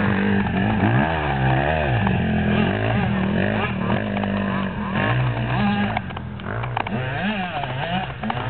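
Dirt bike engine revving up and down over and over as it is ridden through sand, its pitch rising and falling with the throttle. It gets somewhat quieter about six seconds in.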